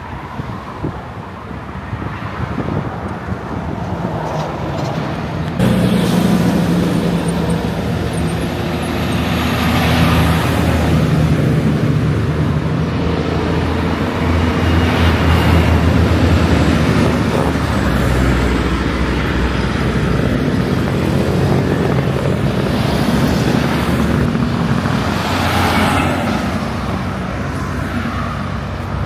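Highway traffic: cars and semi trucks passing, their tyre and engine noise swelling and fading with each pass. From about six seconds in, a steady low diesel engine hum runs underneath.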